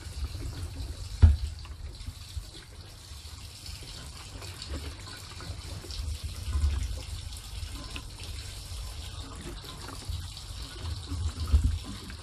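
Fuel pouring from a VP Racing utility jug through its spout hose into a car's fuel tank: a steady liquid rush, with a few low thumps, the loudest about a second in.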